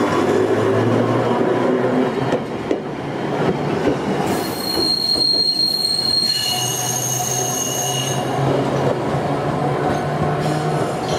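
Iyotetsu 50-type tram running on its rails, with a steady rumble; its wheels squeal on the rails in a high, steady whine from about four seconds in, shifting to a different pitch for another couple of seconds before fading.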